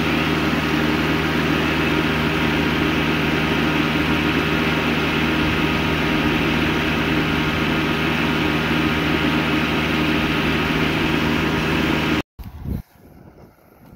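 Kubota tractor's diesel engine running steadily up close, a continuous low hum at an even pitch. It cuts off abruptly about twelve seconds in, leaving faint outdoor background with a few soft knocks.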